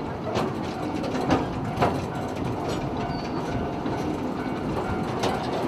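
Small narrow-gauge steam train running along the track, heard from aboard a passenger car: a steady rumble of wheels on rail with a few sharp clacks, three of them close together in the first two seconds.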